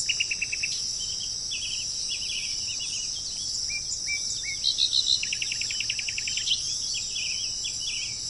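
Small birds chirping, with scattered short calls and two rapid trills, one at the very start and one about five to six seconds in, over a steady high-pitched drone.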